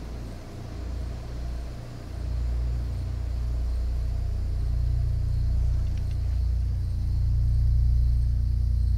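A deep, low rumbling drone that swells steadily louder.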